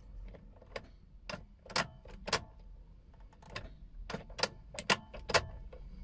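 Sharp, irregular clicks and light jangles, about ten in all, from the key and keyring being worked in a Holden Captiva's ignition switch. No cranking or engine sound follows: the starter is not engaging, the intermittent no-start fault.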